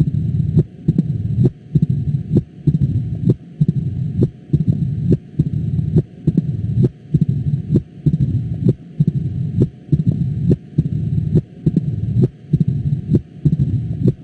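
Recorded heartbeat heard through a stethoscope: sharp heart sounds in a regular rhythm, with a loud rushing murmur filling almost the whole time between the beats.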